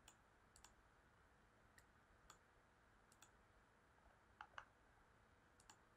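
Faint, scattered clicks of a computer mouse and keyboard, about ten in all, with a louder quick pair a little past the middle.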